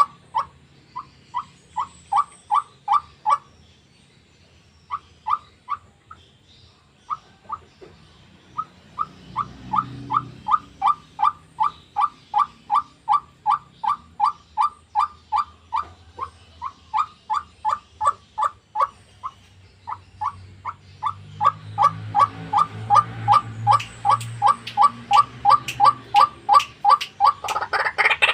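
White-breasted waterhen (ruak-ruak) calling: a long series of short, repeated notes, about three or four a second, in runs broken by a few brief pauses.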